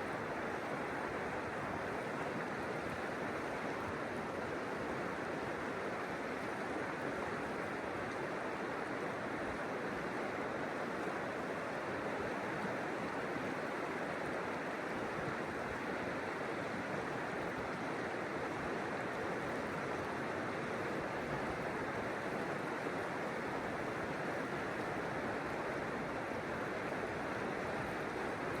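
River water rushing and flowing steadily, an even wash of water noise with no breaks or changes.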